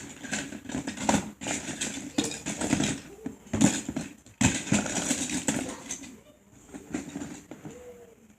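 Plastic Lego bricks clicking and clattering as pieces are handled and pressed together, in a quick irregular run of sharp clicks and rustles.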